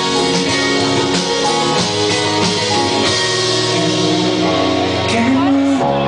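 Live band playing a song: strummed acoustic guitar with keyboard, and a voice singing.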